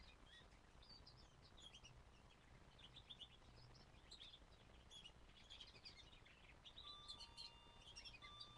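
Young canary chirping faintly, a quick, continuous series of short high chirps, with a few steady held tones near the end.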